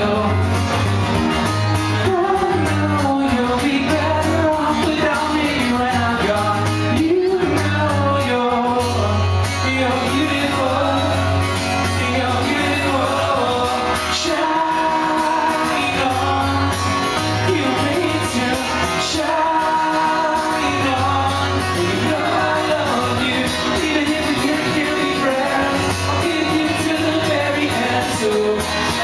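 Live pop-rock song: a male singer singing into a microphone over his strummed acoustic guitar, amplified in a large hall.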